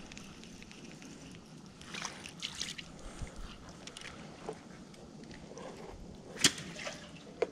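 A hooked crappie is reeled up and lifted out of the water, with soft splashing and scattered small clicks and rustles of handling. A single sharp click about six and a half seconds in is the loudest sound.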